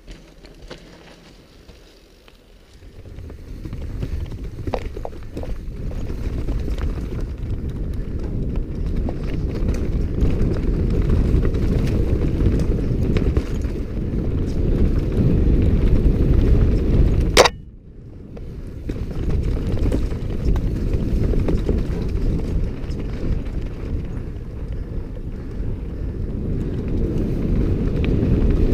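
Mountain bike riding fast down a rocky trail, heard through a helmet camera's microphone: a dense low rumble of wind buffeting the mic and tyres on rock, starting about three seconds in. A sharp click about two-thirds through, with a second of near quiet after it, then the rumble resumes.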